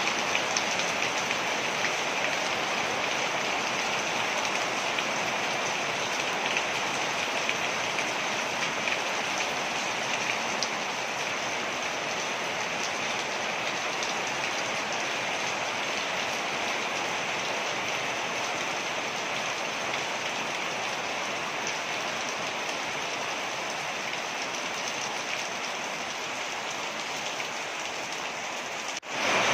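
Steady rush and splash of falling water from a waterfall, an even hiss with many small splashes. It dips briefly near the end and comes back a little louder.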